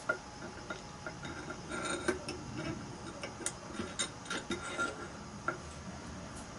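Irregular light metallic clicks and taps, some with a brief ring, as a long steel through-bolt is fed through the end bell into the housing of a small electric motor being reassembled. The clicks stop about five and a half seconds in.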